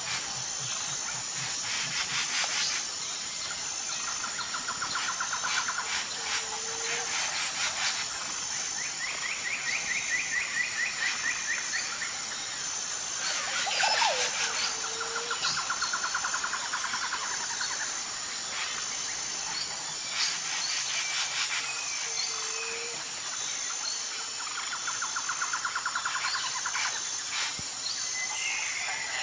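Natural ambience of insects and birds: a steady high insect drone with a regular pulsing chirp, and trilling bird calls every few seconds. A short low call repeats about every seven or eight seconds, and scattered sharp clicks come through, the loudest about halfway along.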